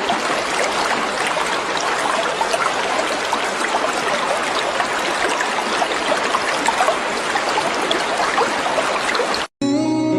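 Water flowing in a stream, a steady rush with fine bubbling. It cuts off suddenly near the end and gives way to guitar music.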